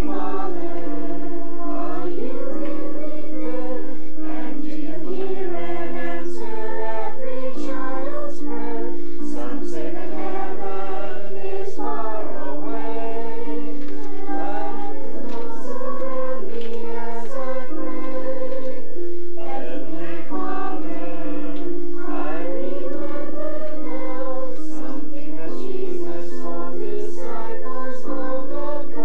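A children's choir of about fifteen children singing a slow song together, with held accompaniment notes beneath the voices.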